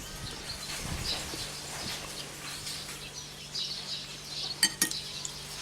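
Small birds chirping in the background over a steady low hum, with a couple of sharp clinks near the end.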